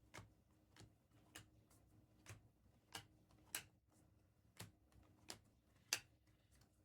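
Trading cards being flipped one by one off a stack, a soft sharp click each time, about ten in a row at a steady pace of roughly one every half to three-quarters of a second.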